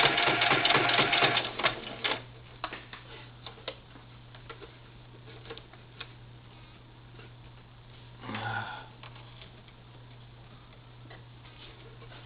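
Singer Futura sewing machine running a straight stitch in a rapid clatter for about two seconds, then stopping. Scattered light clicks follow over a steady low hum, with one short burst of sound about eight seconds in.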